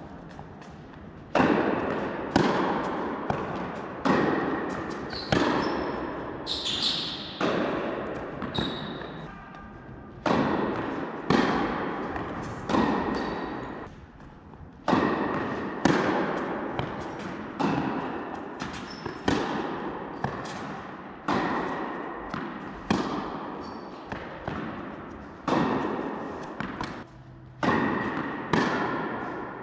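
Tennis rally in a sports hall: ball struck by rackets and bouncing on the court, about one sharp hit a second, each ringing out in the hall's echo, in runs broken by short pauses between points.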